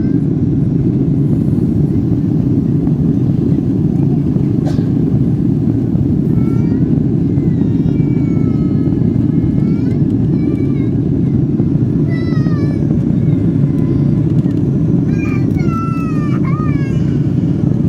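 Steady cabin noise of the Boeing 777-300ER's engines and airflow. From about six seconds in, a young child gives several short, high-pitched squeals that waver up and down, most of them near the end.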